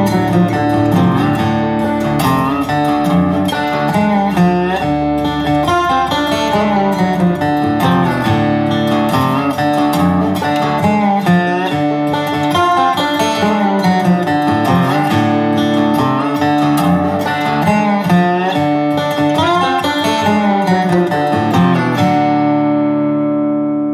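Guitar-led instrumental background music. Near the end the music stops on a final chord that rings on and fades.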